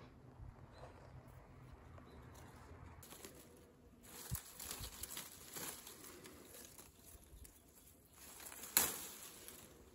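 Tea bush leaves and twigs rustling and crinkling as a cotton-gloved hand picks tea flowers, starting about three seconds in, with one sharp snap near the end.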